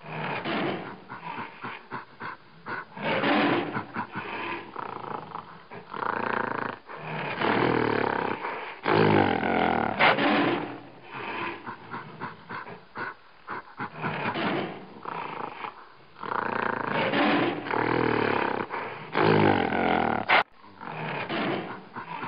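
Big-animal roars and growls, the sound effects for a tiger and a gorilla squaring off, coming in repeated bursts of a second or two with short gaps between, and a brief click near the end.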